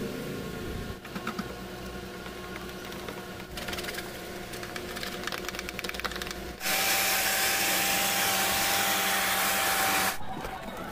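A detailing brush scrubbing cleaning foam along a car's door sill and rubber seal, a scratchy run of fine ticks. About two-thirds of the way through, a louder steady hiss of spray takes over for about three and a half seconds, with a faint whistle in it.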